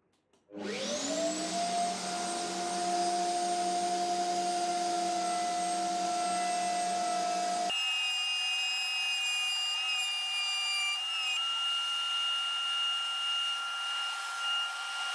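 Table-mounted router starting up about half a second in with a rising whine, then running at full speed with a steady high whine as a wooden disc is turned against the bit on a circle-cutting jig. The sound changes abruptly about eight seconds in.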